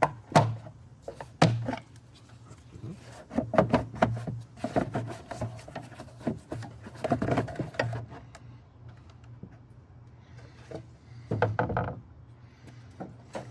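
Plastic air filter housing being worked open by hand: a series of sharp clicks and knocks from the clamps and housing, with rubbing and rattling between them as the upper housing is loosened and lifted.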